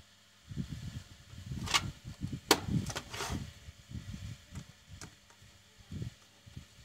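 Hands handling and pressing down on a plastic WiFi modem case, with dull knocks throughout and a few sharp plastic clicks in the middle.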